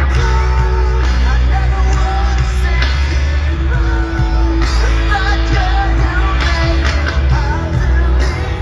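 Loud rock music with a sung vocal, heavy bass and drums.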